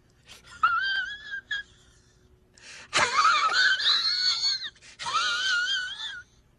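A comic sound-effect clip of a high-pitched, wavering wail heard three times. The middle wail is the loudest and rougher than the other two.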